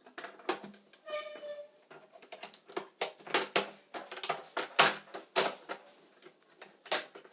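Irregular clicks and knocks of hard plastic parts being handled and fitted, with a brief squeak about a second in.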